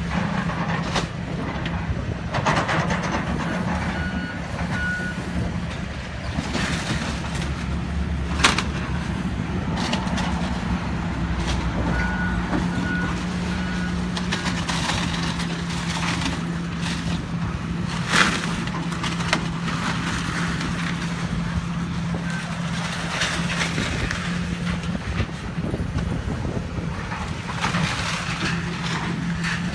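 Hitachi hydraulic excavator's diesel engine running steadily under load as it tears down a building, with repeated crashes and cracks of breaking wood and falling debris, the sharpest about 8 and 18 seconds in. A few short high beeps sound around 4 seconds in and again around 12 to 14 seconds in.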